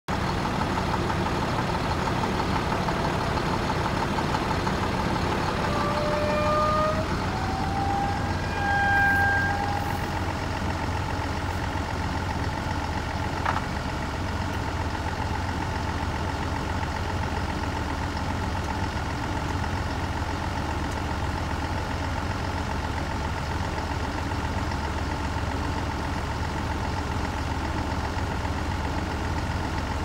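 Roadtec RP-190E asphalt paver's Cummins diesel engine running steadily. A few short whining tones at different pitches come about six to ten seconds in, followed by a single click.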